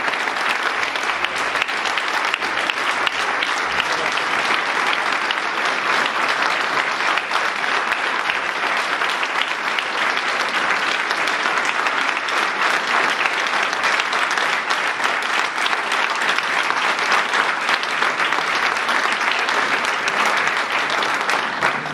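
An audience applauding: many people clapping together at a steady level, without a break.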